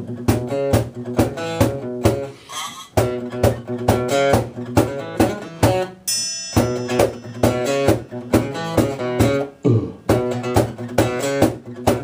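Live band's guitars playing a chord pattern in a steady rhythm, about two strikes a second: the instrumental ending of a song after the last sung line.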